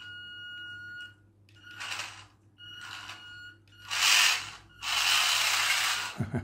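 Small electric motor and plastic gearbox of a radio-controlled toy car running in bursts. It begins with a steady high whine, then gives several short rushes of whirring as the throttle is opened. The longest and loudest rush comes over the last second and a half or so.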